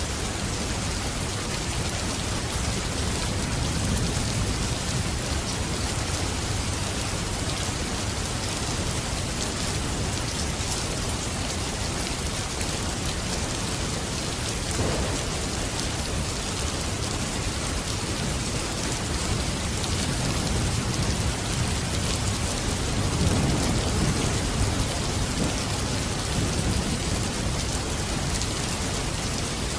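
Steady, heavy rain falling, with a low rumble of distant thunder swelling twice, once about four seconds in and once more loudly near the end.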